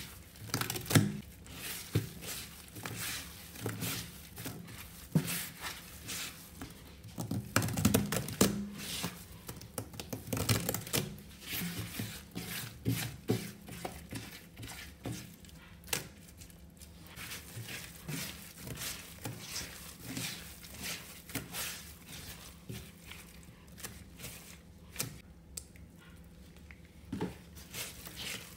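Rubber-gloved hands squeezing and crumbling a dry, crumbly paste and rubbing it over a stainless steel sink, giving a dense, irregular crunching and crackling. It is louder about a second in and again around eight to eleven seconds.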